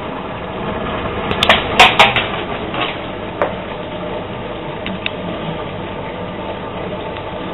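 Zanussi DA 4341 45 cm slimline dishwasher running its wash programme with a steady noise. A few sharp clattering knocks come about one and a half to two seconds in, with lighter clicks after.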